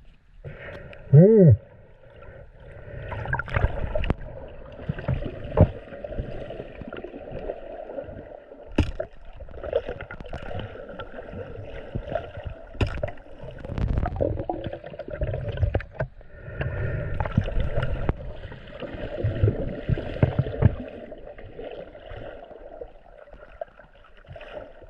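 Water sloshing and gurgling around the camera at the sea surface, with irregular knocks and clicks throughout and a brief pitched groan about a second in.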